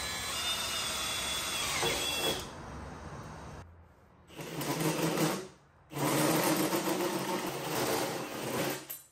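Cordless drill cutting a round hole through the sheet-metal top of an electrical panel enclosure with a hole saw. The drill runs with a steady high whine for about two seconds, eases off and stops briefly, then cuts in two runs separated by a short pause.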